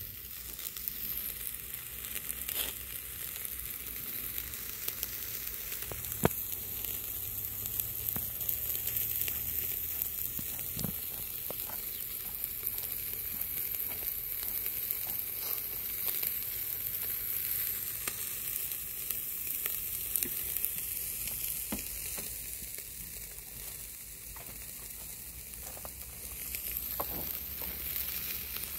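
Chicken and green-onion skewers sizzling on a wire-mesh grill: a steady hiss with scattered small pops and crackles, one sharper pop about six seconds in.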